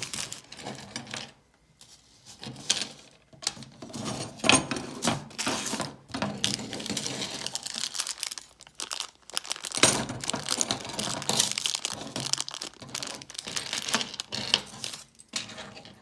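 A shopping bag rustling and crinkling in irregular bursts as it is handled and items are taken out of it.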